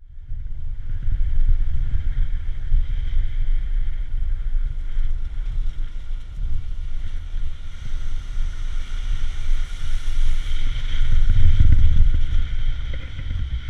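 A vehicle driving on a dirt road at night: a heavy, uneven low rumble of road and wind noise on the microphone, with a steady higher hum above it, growing loudest near the end.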